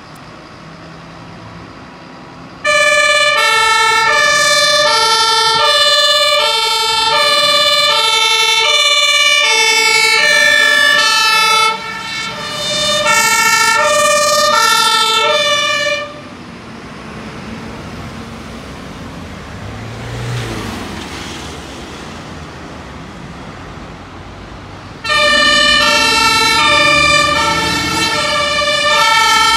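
German fire engines' two-tone sirens (Martinshorn) sounding loudly as the engines leave on an emergency call, two pitches alternating about every half second. The sirens cut off about halfway through, leaving road traffic with a vehicle going by, then start again loud near the end.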